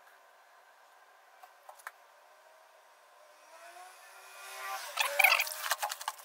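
Hands pressing on a swollen, water-soaked Quick Dam flood bag: a rising squeak builds for about a second, then a cluster of crackling, rustling clicks comes about five seconds in.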